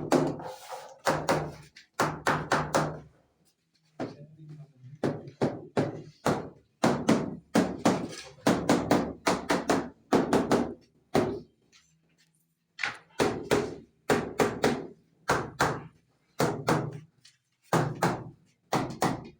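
Repeated hard knocks of tiling and masonry work, several blows a second in runs broken by short pauses, over a faint low hum.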